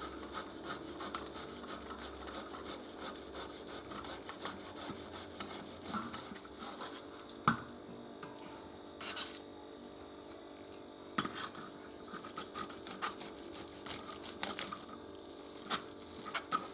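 Boiled, peeled potatoes being rubbed across a hand grater in quick, repeated scraping strokes, with a few sharper clicks.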